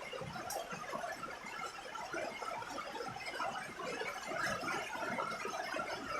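Steady rain falling on a roof, a dense mass of small drop impacts that grows a little heavier toward the end.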